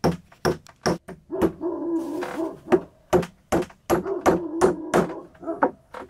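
Claw hammer driving nails into round log slices on a wooden table: a run of about a dozen sharp strikes with short pauses between. A drawn-out pitched sound runs between the strikes about one and a half seconds in and again around four seconds in.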